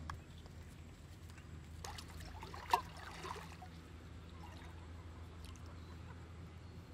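Pond water splashing and trickling as an aluminium pot is dipped and rinsed at the water's edge, with one sharp splash or knock about three seconds in. A faint steady low hum runs underneath.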